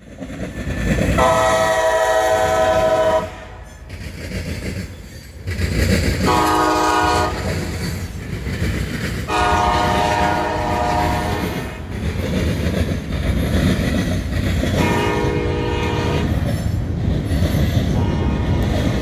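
Freight locomotive air horn sounding four blasts, the first and third longer than the others, over the rumble and wheel clatter of the passing freight train.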